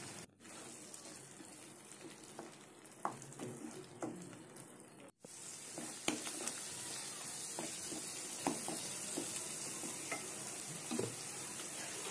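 Spice paste with green chillies frying in a pan, a steady sizzle with scattered scrapes and taps of a wooden spatula stirring it. The sound cuts out briefly twice, near the start and about five seconds in, and the sizzle is louder after the second cut.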